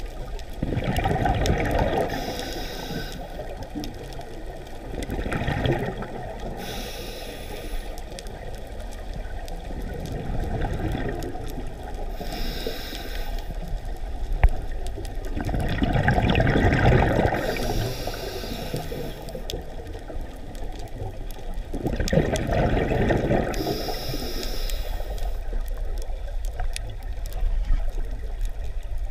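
Scuba diver breathing through a regulator underwater: a short hiss on each inhale, then a louder gurgling rush of exhaled bubbles. About five breaths come one every five to six seconds, with a single sharp click about halfway through.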